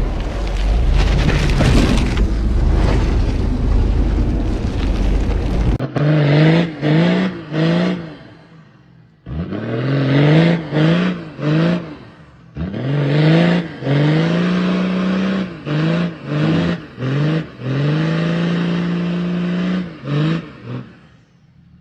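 Off-road 4x4 engines: first a loud, rough noise for about six seconds, then, after a cut, an engine revved again and again in short blips, rising and falling in pitch, with a couple of longer held revs.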